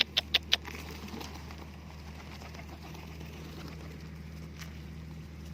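Four sharp claps in quick succession in the first half second, over a steady low hum.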